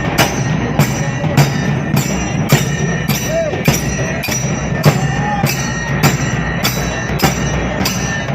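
Traditional Maharashtrian drumming on halgi frame drums and dhol: a steady rhythm of sharp strokes about twice a second over dense low drumming.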